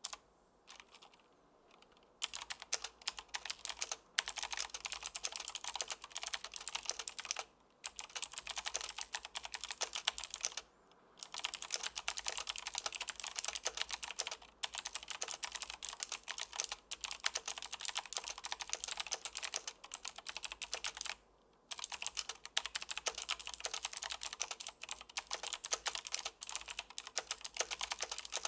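Fast typing on a Logitech G Pro X mechanical keyboard with clicky blue switches, a dense run of sharp key clicks. It starts about two seconds in and has a few brief pauses.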